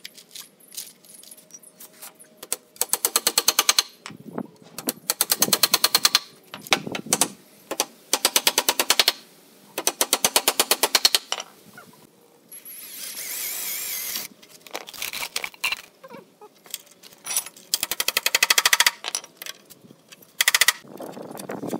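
Impact driver driving screws into wood: about six bursts of rapid, even hammering, each lasting roughly a second, with a stretch of steadier whirring near the middle.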